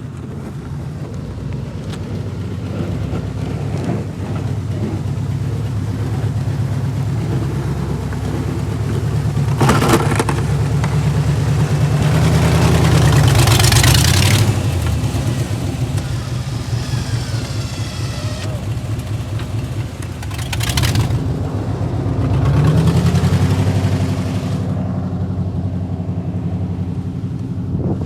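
Vehicle engine running and revving under load, rising and falling in loudness. Short rushes of noise come about ten seconds in, around fourteen seconds and again around twenty-one seconds.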